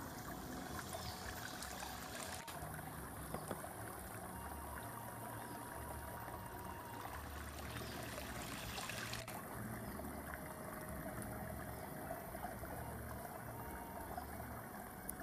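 Small forest stream trickling and splashing steadily over rocks.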